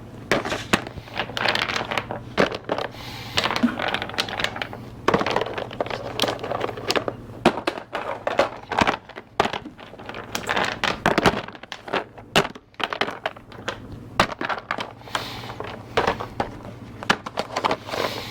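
Small wooden segments clicking and clattering against each other and into small boxes as they are handled, with many irregular sharp knocks.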